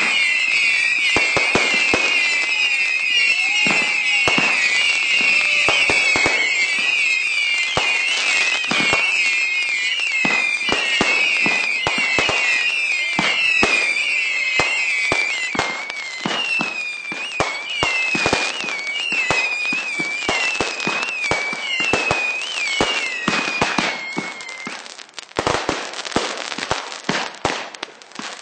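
Fireworks going off in rapid succession: a dense string of sharp bangs and crackles under a chorus of high, wavering whistles. The whistling stops about 25 seconds in, and the bangs thin out after it.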